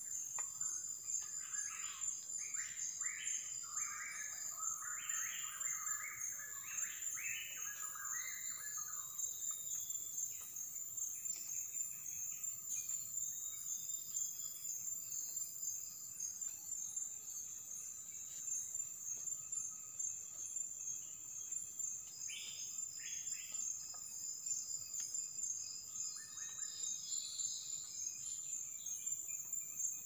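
Forest insects keep up a steady, high, rapidly pulsing drone. Over it birds give a run of short calls in the first ten seconds, with a few more calls near the end.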